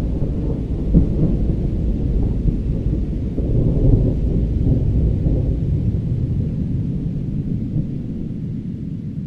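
Rolling thunder rumbling low and continuously. It swells about a second in and again around four seconds, then slowly fades.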